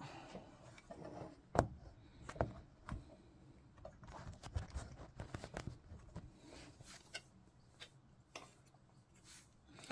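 Scattered light clicks and knocks from objects being handled on a desk, such as a paint pot and brush being picked up and set down, with the loudest knock about a second and a half in.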